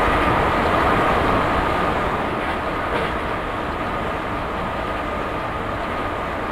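ICE 1 high-speed electric train running at speed: a steady rolling rumble and rush with a constant high whine, and a faint click or two from the wheels on the rails.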